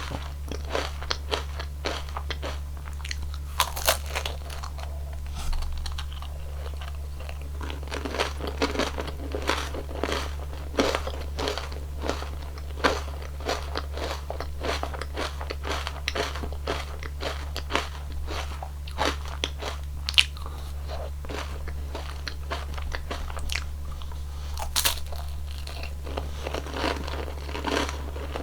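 Close-miked crunching and chewing of a cone ice cream: many crisp bites into the wafer cone and chocolate-nut topping, with wet chewing between them. A steady low hum runs underneath.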